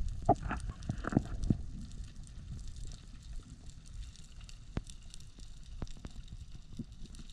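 Underwater sound on a breath-hold dive: a low rush of water with scattered clicks and crackles, and a few louder knocks in the first second and a half.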